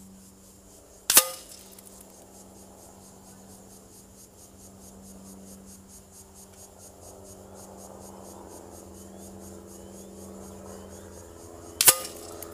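Two sharp cracks about ten seconds apart, one about a second in and one near the end: PCP air rifle pellets striking the paper target and its wooden backboard at 70 m, each with a short ringing tail.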